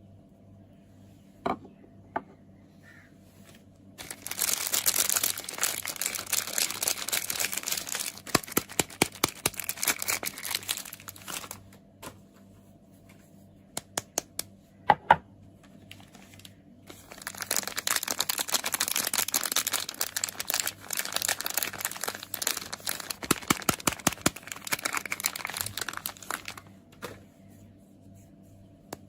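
Soap packaging being unwrapped by hand: the wrapper crinkles and tears in two long stretches, with sharp taps on the packaging in the pauses between them.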